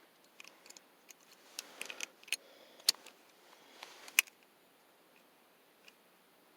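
A scattering of light clicks and ticks, the two sharpest about three and four seconds in, then near silence; no engine cranking or running is heard.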